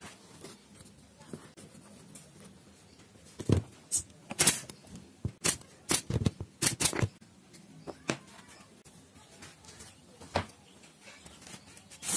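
Small plywood pieces knocked together and set down on a plywood table top: a cluster of sharp wooden clacks between about three and a half and seven seconds in, then a few single taps.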